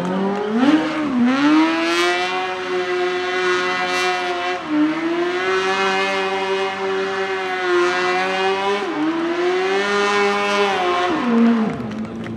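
Honda 600cc motorcycle engine in an Ape Car Proto three-wheeler, held at high revs. The pitch dips briefly a few times and climbs back, then falls away shortly before the end.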